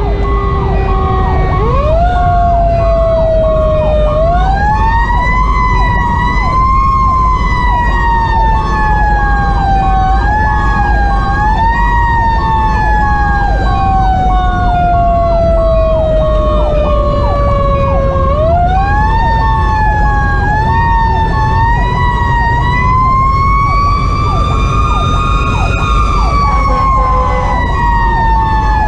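Federal Q2B mechanical siren on a fire engine, winding up sharply then coasting down in long, slowly falling wails, spun up again about four seconds in and again near eighteen seconds. Under it is the low rumble of the truck's 470 hp Detroit Series 60 diesel, heard from inside the cab.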